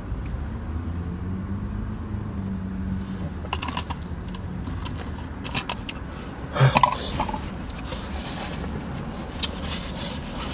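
Steady low hum inside a car cabin, with scattered short rustles and clicks as paper towels are handled. There is one loud short vocal sound from the man about two-thirds of the way in.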